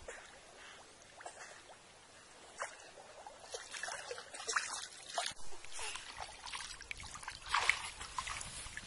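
Muddy water splashing and trickling as a mosquito net is dragged through shallow water and hauled up onto the bank, with irregular splashes and drips that grow busier about halfway through.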